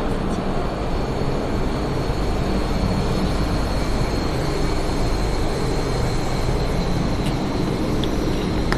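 Steady drone of factory machinery, with low hum and a faint high whine held throughout.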